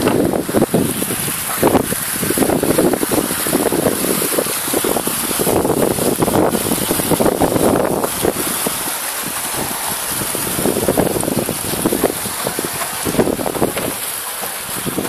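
Wind buffeting the microphone in uneven gusts, over a steady high hiss.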